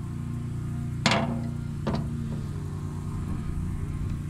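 Two sharp plastic clicks, about a second apart, from handling a string trimmer's fuel cap and fuel bottle, over a steady low hum.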